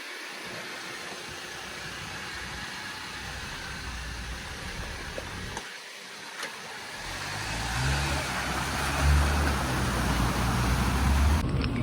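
Four-wheel-drive engine running at low revs, quiet at first, then growing louder from about seven seconds in as the vehicle crawls closer, over a steady hiss of outdoor noise.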